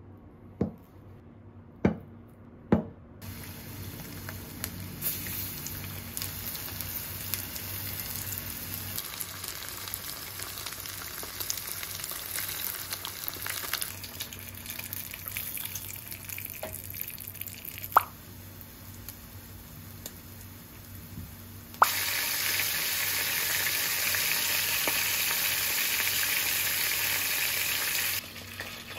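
A kitchen knife cuts through a block of tofu and knocks on the cutting board three times. Then starch-coated tofu shallow-fries in oil in a frying pan, sizzling steadily with occasional clacks of tongs. Near the end shimeji mushrooms and shishito peppers fry in the oil with a louder, even sizzle that stops abruptly.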